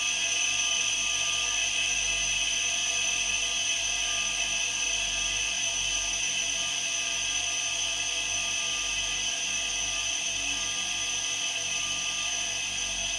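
Eight refrigerator compressors running together as a DIY air compressor, pumping air into a 50-litre tank. They make a steady high-pitched whine over a low hum.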